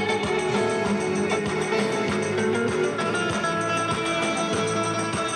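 Instrumental music with guitar and a steady beat, no singing.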